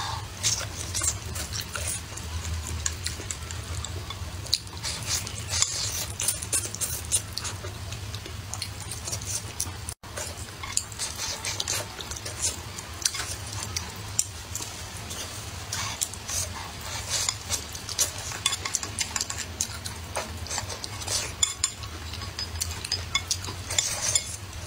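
Close-miked eating of stir-fried green peppers and rice: wet bites and chewing, with wooden chopsticks clicking and scraping on a ceramic plate as the last rice is scraped up near the end. A steady low hum lies underneath, and the sound breaks off briefly about ten seconds in.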